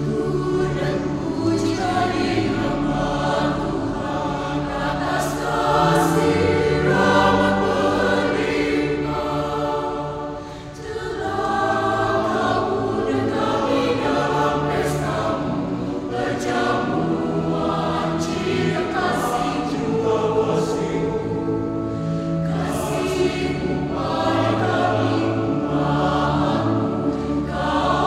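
Mixed church choir of adult and child voices singing in parts, with sustained chords and a short break between phrases about ten seconds in.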